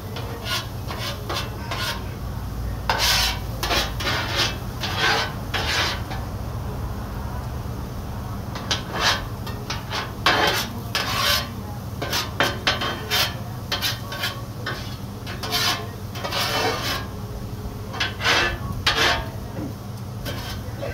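Metal spatula scraping and pushing diced onions across a hot steel flat-top griddle in short, irregular strokes, over a steady low hum.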